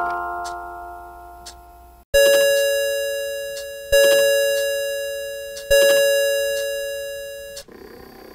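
Citizen karakuri music-box clock: the last bell notes of its tune die away, then its chime strikes three times at the same pitch, about 1.8 seconds apart, each stroke ringing on until the next, the last damped off suddenly near the end. The even, identical strokes after the melody are the clock striking the hour.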